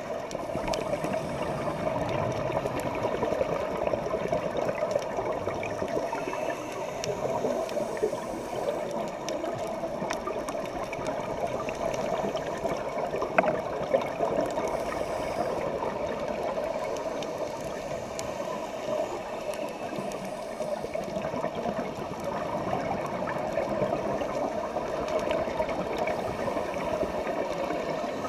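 Underwater noise heard through a camera's waterproof housing on a scuba dive: a steady, muffled rush of water, with two brief clicks about halfway through.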